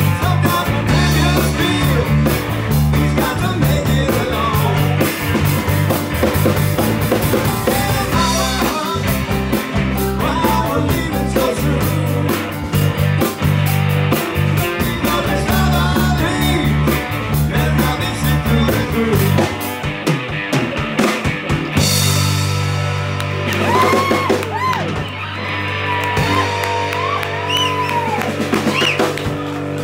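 Live rock band playing: electric guitar, electric bass, drum kit and singing. About two-thirds of the way through the drumming stops, leaving held low bass and guitar notes with sliding notes over them.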